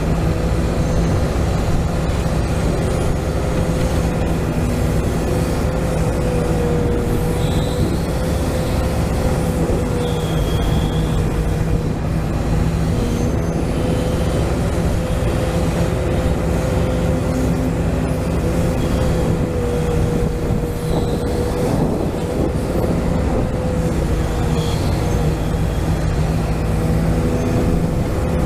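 Hydraulic pump of a 1:14 scale RC Volvo excavator running with a steady whine as the excavator digs, with a few short high chirps over it.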